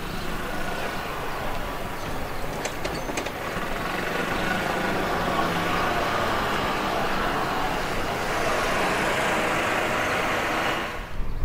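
Steady vehicle engine noise that grows louder over several seconds and cuts off suddenly near the end, with a few faint clicks about three seconds in.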